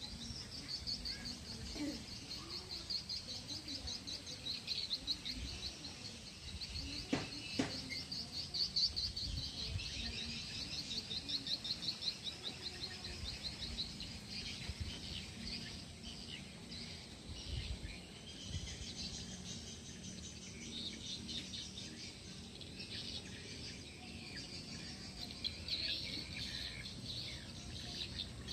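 An outdoor chorus of rapid, high chirps and trills from birds and insects, with a low rumble underneath and a single knock about seven seconds in.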